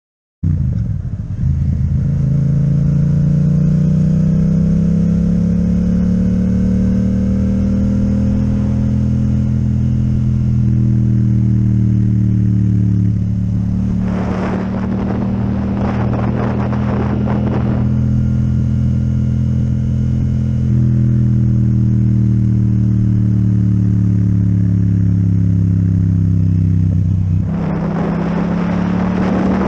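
Yamaha MT-07 parallel-twin engine with an Akrapovic exhaust, pulling steadily at cruising speed as the motorcycle rides along. Its note rises and dips slightly a few times, and a rushing noise comes up over it around the middle and again near the end. The sound cuts in about half a second in.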